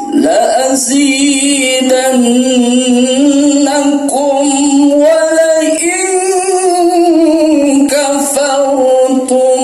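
Singing with musical accompaniment: one melodic voice line holding long notes with vibrato, with one long rising-and-falling phrase near the middle.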